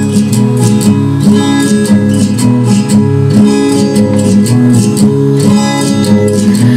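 Acoustic guitar music with strummed chords and a steady beat, played back loud through a column speaker driven by a MECHMAN PRO X750 power amplifier.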